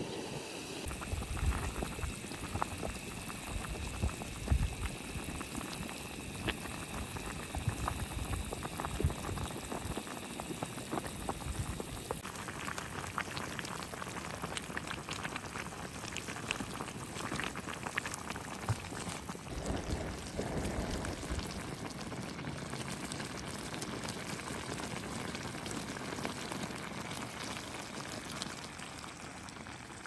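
A pot of rica-rica stew bubbling at a boil while the meat braises: a steady hiss with many small pops.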